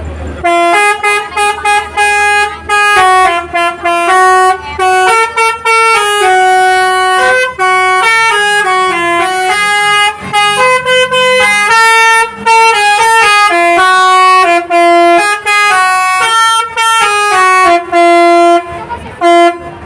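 Basuri telolet multi-tone horn on a bus playing a fast tune: loud honked notes in quick succession, jumping up and down in pitch with short gaps between phrases.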